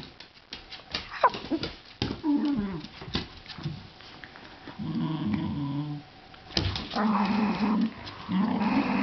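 Irish Terrier play-growling in several short low bursts, louder near the end, with scattered sharp clicks and knocks in the first couple of seconds.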